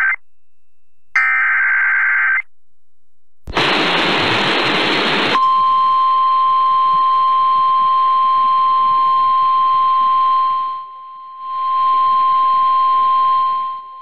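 Two short buzzing squawks of SAME digital alert-header data, a second of radio static, then the steady single-pitch NOAA Weather Radio warning alarm tone sounding for about nine seconds over a hiss of static, with a brief dropout partway through. This is the start of a new weather warning broadcast.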